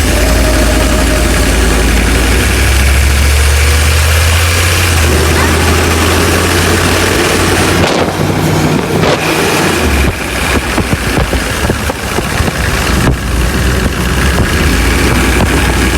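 Humvee's V8 diesel engine running loud and steady, with a deep low drone that drops away for a moment about halfway through and then returns.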